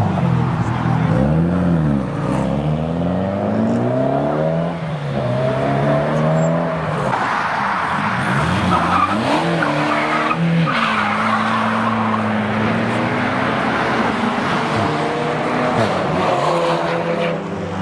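Car engine revving hard, its pitch rising and falling several times and held high for a couple of seconds, while the tyres squeal and skid under wheelspin, as in a burnout or drift.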